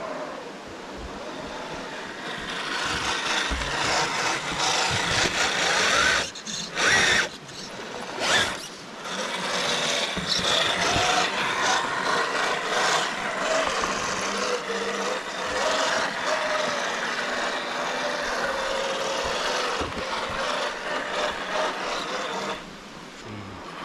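Small electric RC crawler motor and gearbox whining as the truck crawls, its pitch wandering up and down with the throttle, mixed with a rough scraping and grinding of the truck over rock and wood. The sound stops and starts briefly around six to eight seconds in.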